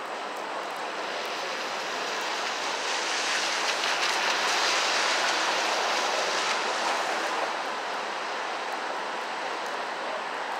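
Street traffic: a steady hiss of passing vehicles that swells to a peak about four to five seconds in, as one goes by close, then fades back.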